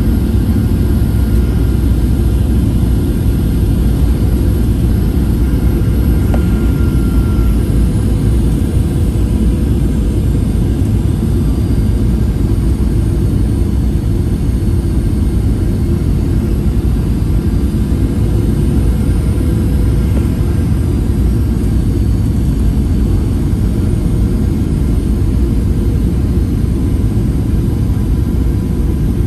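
Steady cabin noise of a Boeing 737-800 descending on approach, heard inside the cabin from a window seat beside the wing: a loud, even low rumble from its CFM56 turbofan engines and the airflow past the fuselage.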